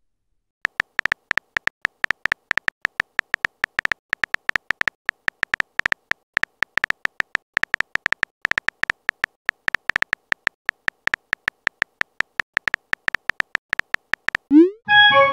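Phone keyboard typing sound effect: a quick, steady run of short pitched clicks, several a second, one per letter as a text message is typed out. Near the end a rising swoop and a short chime, the sound of the message being sent.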